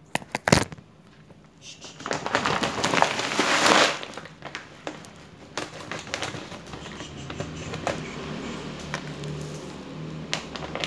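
A few sharp clicks, then scissors cutting open a thick plastic bag of clumping cat litter with a loud crinkling rasp for about two seconds, followed by softer rustling of the plastic as the bag is handled.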